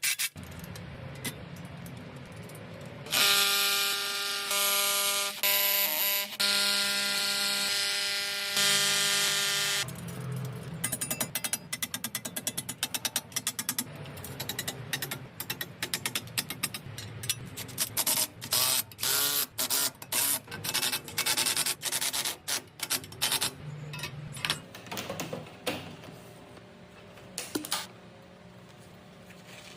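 A power tool runs steadily for about seven seconds with a whining tone, then comes a long run of clicks and rattles from parts and tools being handled.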